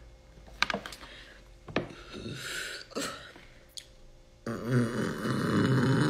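A young woman's long, deep closed-mouth burp that starts suddenly about four and a half seconds in and holds loud and low. It comes after a few faint clicks.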